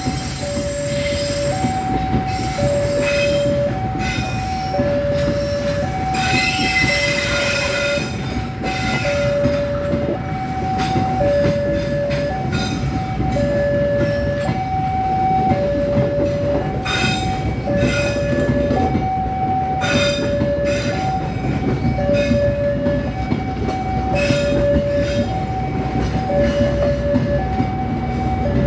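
KAI passenger train's economy coaches rolling past close by: a steady rumble of wheels with clacks over the rail joints and a brief wheel squeal about seven seconds in. Over it a level-crossing warning signal sounds two alternating tones, changing pitch about once a second.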